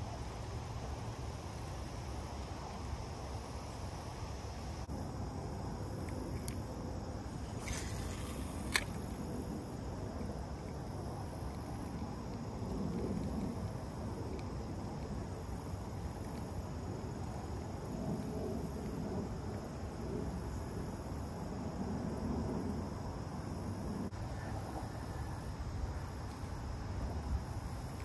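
Wind rumbling on the microphone under a steady faint high hiss, with a single sharp click about nine seconds in.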